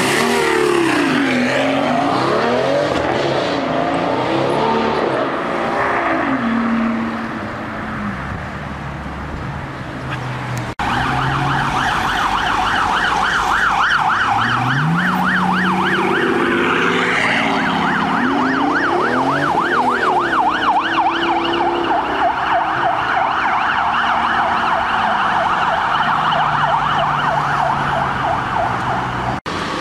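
Mercedes-Benz S65 AMG's twin-turbo V12 revving up and down as the car drives by. After a cut about eleven seconds in, an emergency-vehicle siren with a fast warbling yelp takes over and runs on, the V12 still revving beneath it.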